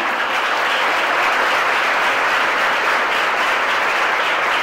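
Audience applauding steadily in a lecture hall, many people clapping at once.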